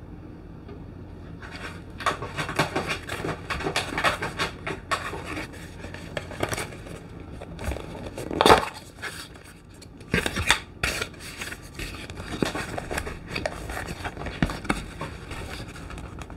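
A cardboard box being handled and opened by hand: a busy run of short scrapes, taps and rustles that starts about a second and a half in, with one louder knock about eight seconds in.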